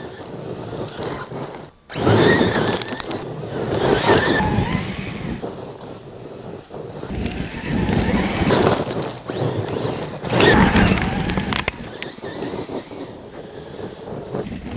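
Kyosho Foxx VE radio-controlled truck running hard on loose gravel: its brushless electric motor whines, rising and falling in pitch with the throttle, over the crunch and spray of stones under the tyres. It swells several times as the truck passes close and fades as it drives away.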